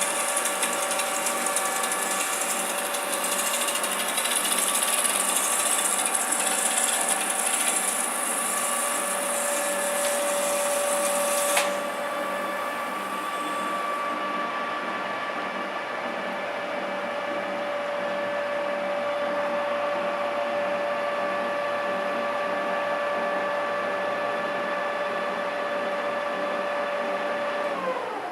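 TOS lathe running with a steady whine from its gearing. A high hiss over it stops with a click about twelve seconds in, and at the very end the whine drops in pitch as the machine winds down.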